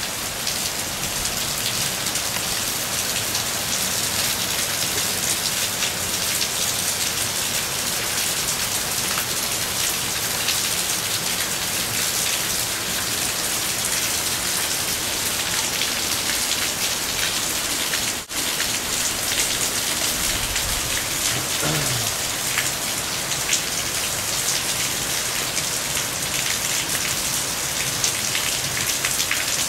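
Floodwater rushing down a street in a heavy rainstorm: a steady, loud wash of water noise. It drops out for an instant about eighteen seconds in.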